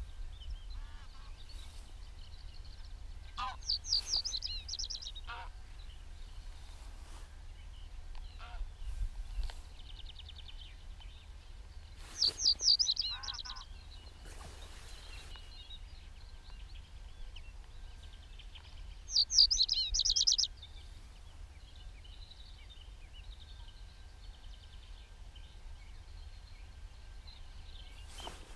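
A songbird singing short, bright, rapid trilled phrases, three times roughly seven to eight seconds apart, with fainter chirps from other birds in between. A steady low rumble runs underneath.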